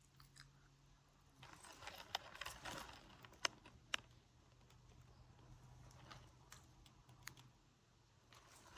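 Faint handling noise with a few small sharp clicks from jewellery pliers and metal jump rings being worked.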